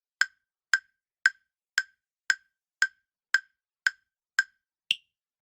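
Countdown timer sound effect: sharp, evenly spaced ticks at about two a second, the last one higher-pitched, counting down the time to answer a quiz question.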